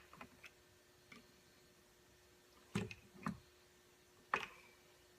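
A few light clicks and knocks as motorcycle fork cartridge parts are handled, with a broken plastic free piston among them: three faint taps, then three stronger knocks, the last with a short metallic ring.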